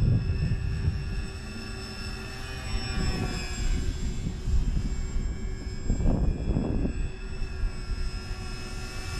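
Twin electric motors and propellers of a radio-controlled Grumman HU-16 Albatross flying boat whining steadily in flight, the pitch drifting slightly as the plane manoeuvres. A few low rumbles come through about three seconds in and again around six seconds.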